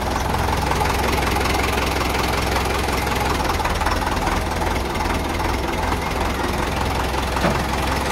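Farm tractor's diesel engine running steadily at low speed as the tractor drives slowly along.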